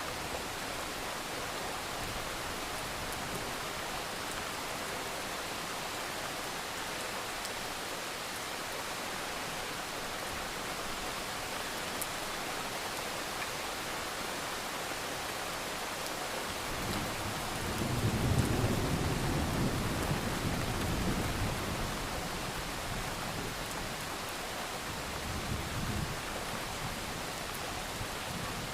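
Steady rain falling, with a low rolling rumble of thunder that swells about two-thirds of the way through and dies away over several seconds, and a weaker rumble near the end.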